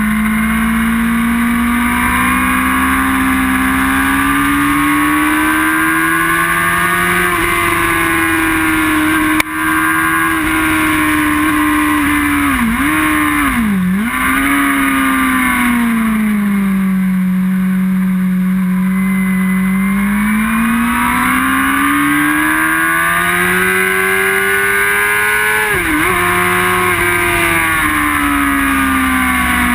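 Inline-four sportbike engine heard onboard at track speed, its revs climbing and falling as it pulls out of corners and slows into them. Quick sharp dips in pitch about halfway through and again near the end mark gear changes, and a single brief knock comes about nine seconds in.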